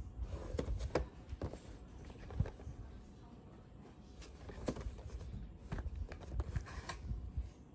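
Small cardboard box handled and turned over in the hands: rubbing and scraping of fingers on cardboard, with scattered light knocks and clicks.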